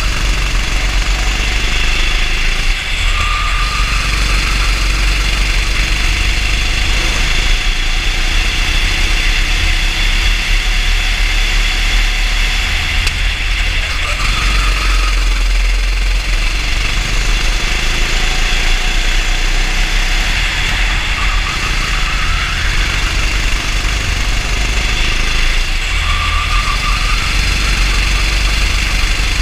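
Racing kart's engine running steadily on track, heard through a camera mounted on the kart, over a continuous deep rumble.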